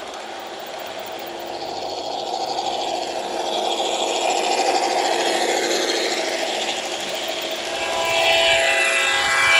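Large-scale garden model train, a diesel locomotive pulling tank cars with metal wheels, rolling along outdoor track: a steady running rumble that swells as the cars pass. Near the end several steady tones come in together.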